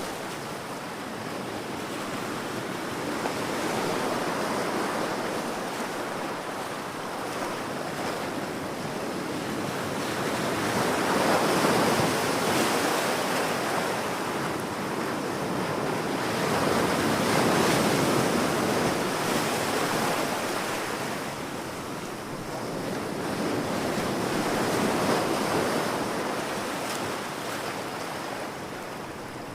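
Ocean waves breaking and washing on a beach, the surf swelling and easing every several seconds, loudest at about 12 and 18 seconds in.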